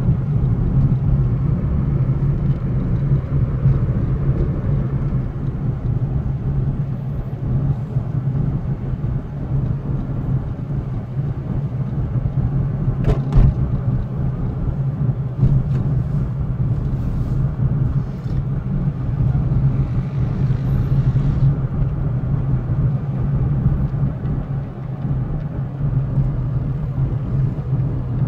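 Steady low rumble of a car's engine and tyres heard from inside the cabin while driving. There is a single brief knock about halfway through.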